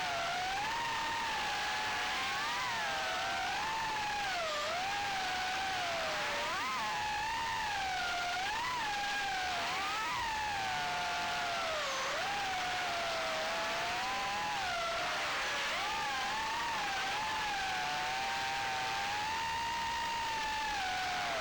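Whine of a small FPV quadcopter's Sunnysky 1106 brushless motors and three-blade props, the pitch rising and falling continually as the throttle changes. A steady hiss of air runs underneath.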